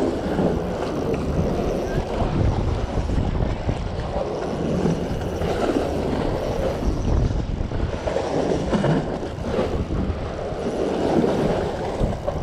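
Wind buffeting the microphone over steady outdoor noise by the sea, with faint voices in the background.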